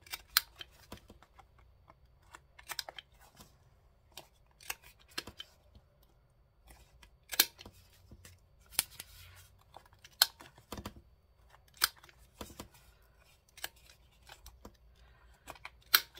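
Sharp paper snips, about one every one to two seconds, as the corners of a paper journal card are cut round.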